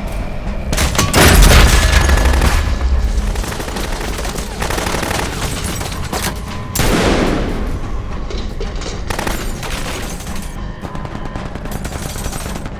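Designed action sound effects: bursts of gunfire with a heavy, deep explosion about a second in and another loud blast about seven seconds in, mixed over music.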